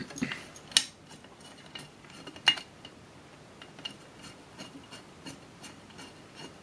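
Screwdriver turning a screw out of a steel mounting plate: light metallic clicks and scraping, with sharper clicks about a second in and again about two and a half seconds in.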